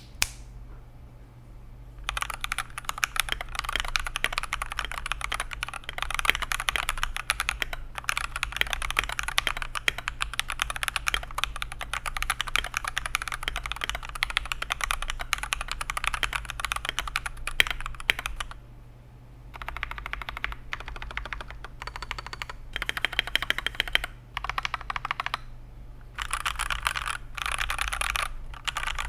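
Typing test on a mechanical keyboard fitted with Akko switches: rapid key clicks and bottom-outs in a long continuous run, then shorter bursts of typing with brief pauses, over a faint steady low hum.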